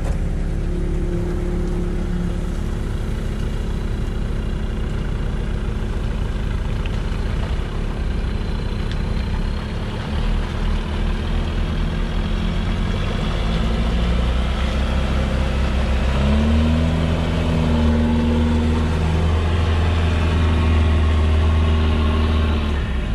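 All-terrain vehicle engines running. About two-thirds of the way through, an engine revs up higher and louder and holds there while the six-wheeled Shatun pushes through the peat slurry under load.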